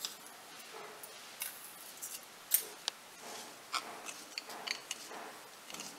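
Mustard seeds popping in hot oil in a kadai, a scattering of irregular sharp little pops, with a wooden spatula stirring in the pan.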